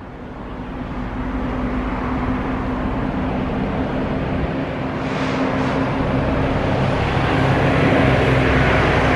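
Jet airliner engine noise swelling steadily as the aircraft approaches: a broad rumble with a steady low hum under it, growing louder throughout.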